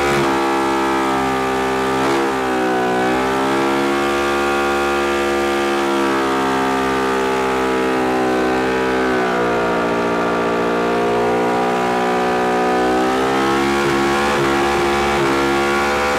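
Engine held at high revs during a smoke-show burnout, spinning the tyres against the ground to make smoke. It runs as a continuous wail whose pitch sags about two seconds in and again around nine to ten seconds in, then climbs back.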